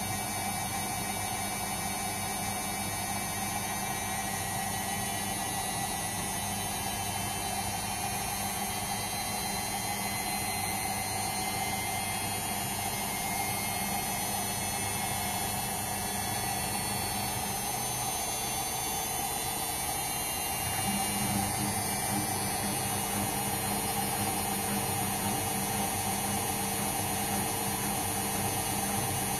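Indesit washing machine running a 60-degree cotton cycle: a steady electric hum with a few steady tones over hiss. The low hum grows a little stronger about 21 seconds in.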